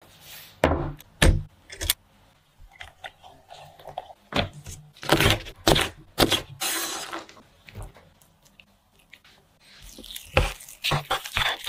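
Chef's knife chopping pickled long beans on a wooden cutting board: separate sharp knocks, in places about two a second, with a brief rustling scrape between chops.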